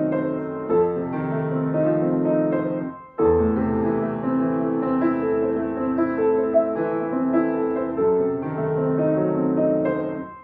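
Solo piano playing a slow classical piece in held, overlapping chords. The phrases break off briefly about three seconds in and again near the end.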